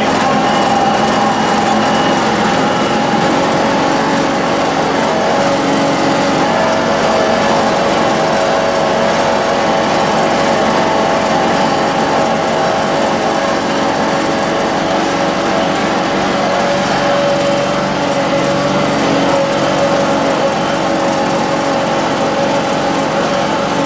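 John Deere X585 garden tractor running steadily under way, its engine and drivetrain giving an even drone with a steady whine over it.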